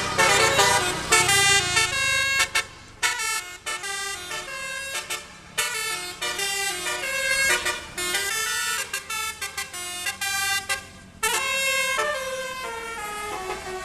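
Basuri musical bus horn (telolet) playing quick melodic tunes on its trumpets, note after note in several phrases with short breaks between them.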